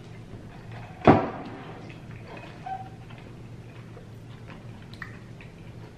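Eating sounds: a sharp, loud crunch about a second in as a crispy taquito is bitten, then quiet chewing and small clicks.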